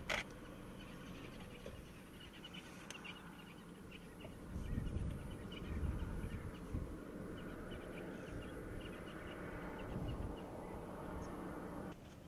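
Outdoor ambience: a low rumble that rises and falls, with faint short bird chirps repeating in the background and one sharp click at the very start.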